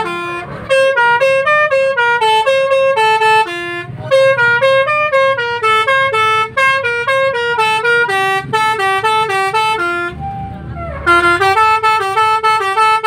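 Multi-tone telolet horn of a tourist bus playing a quick tune of short, stepped notes. It plays in three runs, with brief breaks about four seconds in and again about ten seconds in.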